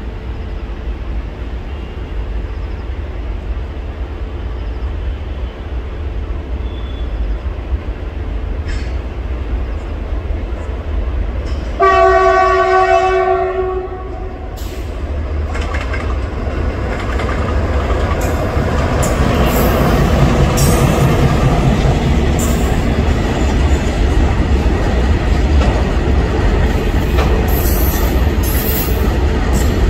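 Long goods train approaching and passing: a steady rumble that swells over the second half, with one locomotive horn blast of about two seconds near the middle. Toward the end, the wheels clatter over the rail joints as the wagons pass close.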